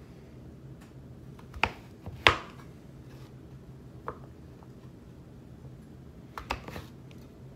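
Kitchen knife cutting raw sweet potato into fry-sized sticks, the blade knocking sharply onto the cutting board a few times at uneven intervals: two strikes around two seconds in, the second the loudest, a lighter one a couple of seconds later, and a quick cluster near the end.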